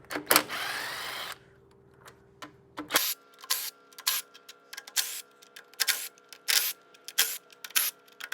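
A cordless power tool fitted with a 13 mm socket spins a bolt out with a short whir that rises in pitch. Then comes a run of short, sharp bursts, one roughly every half second to second, as more bolts are backed out of the pump manifold.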